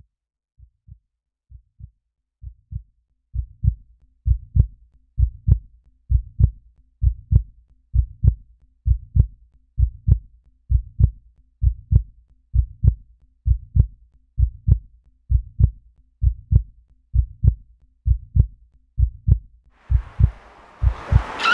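Heartbeat sound effect: low double thumps, lub-dub, about one beat a second, starting faint and growing louder over the first few seconds, then steady. Near the end a rising hiss swells in under it.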